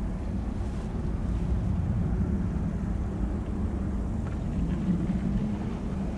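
Steady low rumble of jet airliner engines at an airport, with gusts of wind on the microphone.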